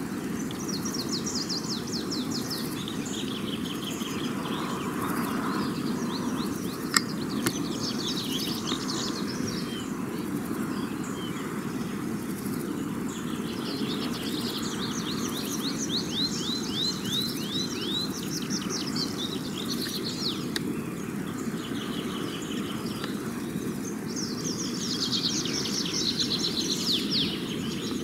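Songbirds singing in the forest: several phrases of rapid, repeated chirping notes over a steady low background hum, with a single sharp click about seven seconds in.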